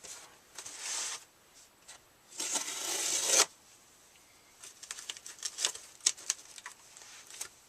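Packaging handled as a small box is opened: two scratchy tearing or rustling sounds, the second about a second long and the loudest, then a run of light crackling clicks.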